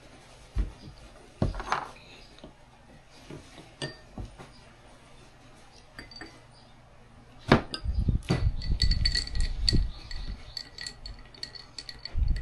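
Cups and dishes clinking: a few knocks at first, then from about seven seconds in a quick run of clinks with a faint ringing after them.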